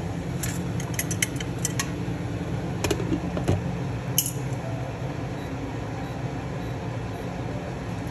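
A metal dish-lifting clip clinking against a glass dish and a steamer pot as the dish is set down into the water, a scatter of light clicks in the first half. Under it, a steady hiss of the water boiling around the dish.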